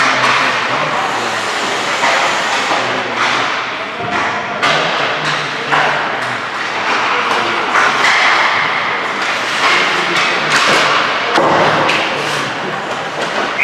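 Ice hockey skate sounds: skate blades scraping and carving on the ice, with repeated sharp thuds and knocks from pucks, sticks and the boards.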